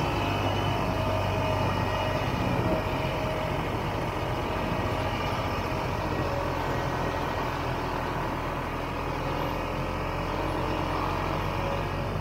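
Vintage 1967 Ski-Doo Olympic snowmobile's two-stroke engine running steadily under way at modest speed, its pitch rising and falling slightly a couple of times.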